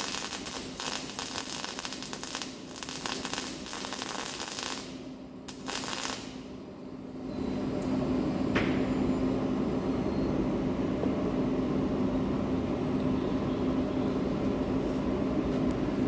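MIG welding arc crackling and sputtering for about five seconds, then stopping, with one more short burst near six seconds. From about seven seconds in, a louder steady mechanical hum with a low tone takes over.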